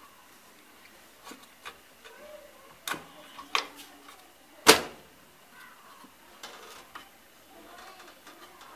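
Intel stock CPU cooler's plastic push-pins being pressed down into the motherboard, snapping into place: several short, sharp clicks, the loudest a little under five seconds in.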